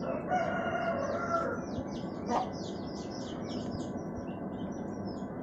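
Birds chirping rapidly over a steady background noise, with a chicken calling for about a second near the start.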